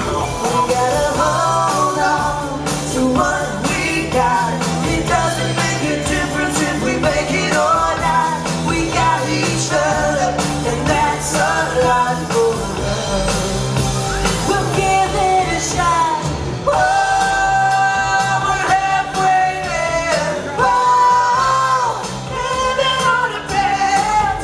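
Live rock band playing: a woman singing lead over electric guitar, bass guitar, drums and keyboard, with long held sung notes about two thirds of the way through.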